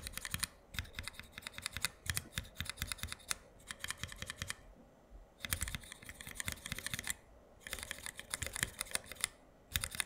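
KBDFANS x MITO Laser linear mechanical keyboard switches (cyan 60 g and pink 70 g) being typed on under keycaps: fast runs of key clacks from keys bottoming out and springing back, broken by brief pauses.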